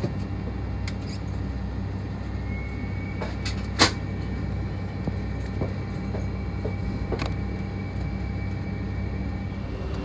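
Steady low hum inside an Airbus A320's cabin as it taxis on idling engines, with scattered light clicks and rattles and one sharp click a little under four seconds in. A faint high whine joins about two and a half seconds in.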